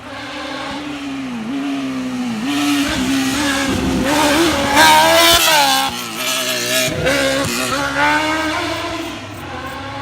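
Small rally-prepared car passing under hard acceleration, its engine revving up and dropping back at each gearshift. It grows louder to a peak about halfway through and fades as it goes away.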